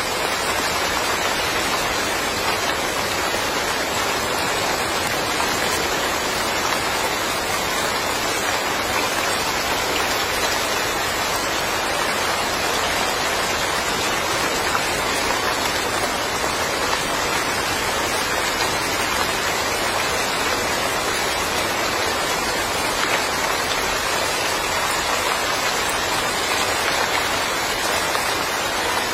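Steady, even rain falling and pattering on surfaces in a yard.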